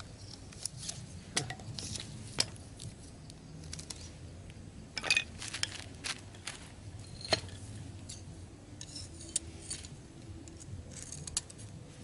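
Irregular light clicks and taps as thin wooden sticks and a pair of metal scissors are handled and knocked together, with a few sharper knocks among them.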